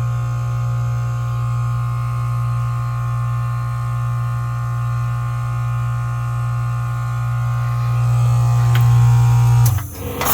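Goodman heat pump outdoor unit in defrost, its compressor running with a loud steady hum and several steady tones above it. Near the end the hum cuts off suddenly and a loud hissing rush of refrigerant begins, typical of the reversing valve shifting as the defrost cycle ends.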